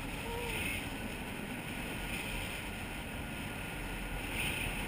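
Steady rushing noise of a zip line ride: wind buffeting the GoPro Hero2's microphone, mixed with the trolley's pulley running along the cable.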